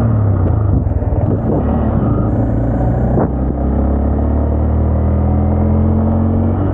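Honda Grom's 125cc single-cylinder engine running steadily while riding, the revs climbing slowly over the last couple of seconds.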